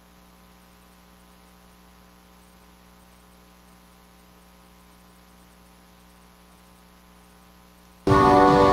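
Faint steady electrical hum made of several constant tones, typical of mains hum in a sound system. About eight seconds in, instrumental music cuts in abruptly with a held chord.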